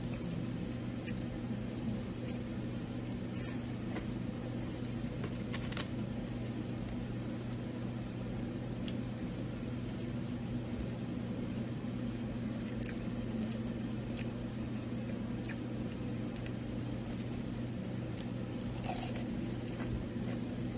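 A steady low hum with a pitched drone, with a few brief clicks and rustles from a person eating finger food by hand.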